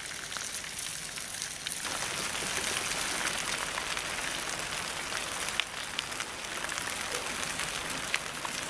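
Brook trout in foil packets sizzling on hot charcoal briquettes: a steady crackling hiss sprinkled with small pops, louder from about two seconds in.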